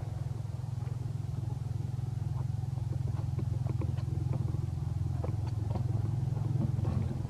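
A motor running steadily as a low, even hum, with scattered light clicks and taps over it.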